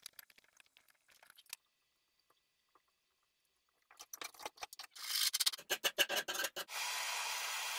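Copper tubing being handled and fitted at a workbench: faint scattered clicks of metal at first, then a dense run of sharp clicks and scrapes from about four to six and a half seconds in. A steady hiss follows near the end.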